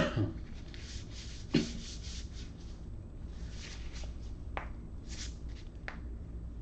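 Light handling noise on a tabletop: a sharp knock at the start, another about a second and a half in, a few fainter clicks later, with soft rustling and rubbing between.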